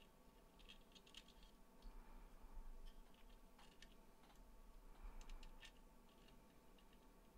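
Faint, scattered clicks and light scraping of small metal parts being handled: a waterproof SMA bulkhead adapter's nut and gasket being threaded on by hand through a plastic enclosure wall.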